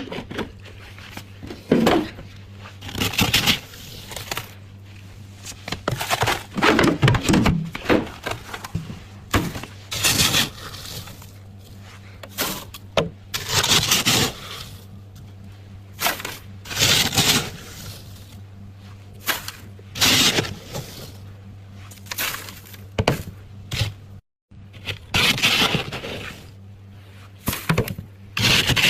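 Freezer frost being scraped and crunched in irregular crackling bursts, over a steady low hum.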